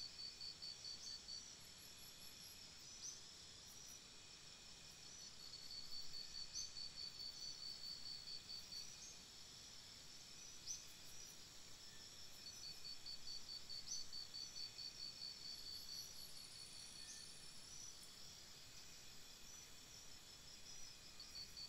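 Night insects chirping faintly in repeated runs of rapid high-pitched pulses, each run lasting a couple of seconds with short gaps between.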